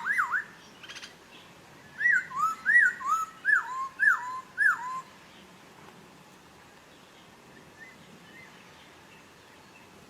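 Poksay Papua songbird whistling: a quick rising-falling phrase at the start, then a run of about eight clear whistled notes alternating high and low over three seconds, after which it falls silent.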